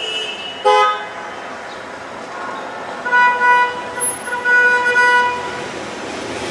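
A vehicle horn honking: a short toot just under a second in, then a longer honk of about two seconds starting about three seconds in, over steady traffic and machinery noise.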